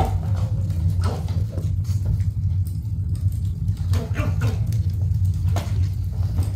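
Dogs giving a few short whines and whimpers, eager for treats, over a steady low hum.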